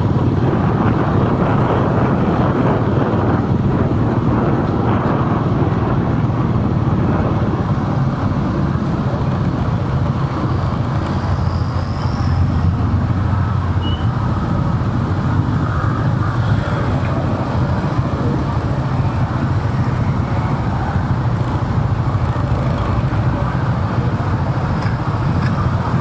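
Steady city street traffic heard from a moving vehicle: engine and road noise as a constant low rumble.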